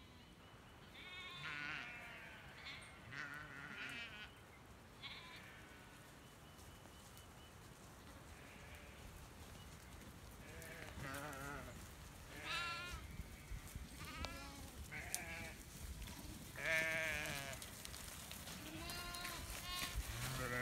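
A flock of sheep bleating, many animals calling in short calls with a wavering pitch, faint and scattered at first and growing louder and more frequent as the flock comes close.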